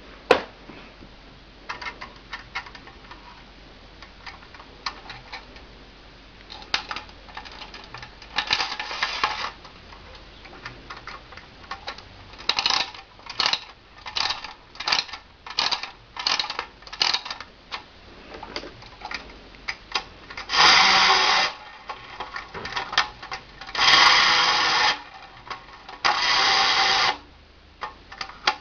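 Clockwork mechanism of a 1940s Günthermann tin windup toy car: a run of short mechanical clicking bursts about twice a second in the middle, then the spring motor buzzing in three loud bursts about a second long near the end.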